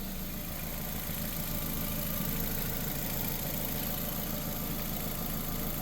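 A 2006 Nissan Sentra's 1.8 L four-cylinder engine idling steadily while it warms up, its thermostat not yet open.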